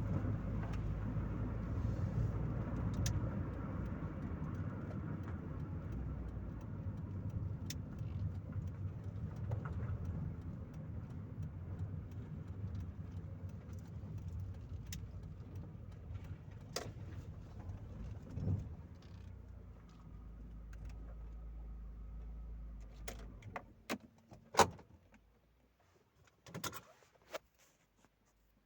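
Chevrolet Corsa Maxx heard from inside the cabin, engine and road noise fading as the car slows to a stop and settles into a steady idle. The engine then cuts off, leaving a few sharp clicks and one loud knock.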